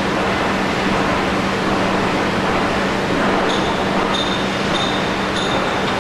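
Hydraulic power pack of a wheel-rim roll-forming machine running: its electric motor and pump give a steady hum over a dense machinery noise. About halfway in, a high-pitched squeal cuts in and out four times.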